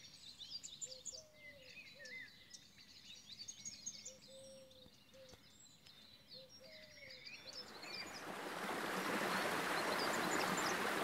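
Faint birdsong, many short chirps and whistles from several birds. About seven seconds in, the rush of a fast-flowing river fades in, grows louder and holds steady, drowning the birds.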